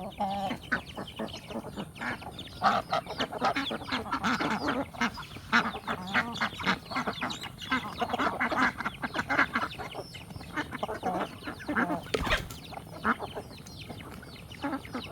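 A flock of ducks quacking and honking continuously in overlapping, choppy calls. A single sharp knock comes about twelve seconds in.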